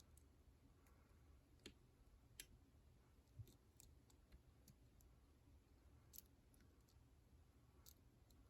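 Faint, irregular clicks of a lock pick lifting and setting pins inside a Master Lock 7050 ProSeries six-pin padlock during single-pin picking. There are about half a dozen separate clicks, a second or more apart.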